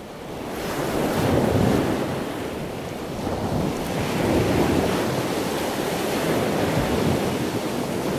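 Heavy ocean surf breaking and crashing, with wind rumbling on the microphone. The sound fades in at the start, then swells and eases every few seconds.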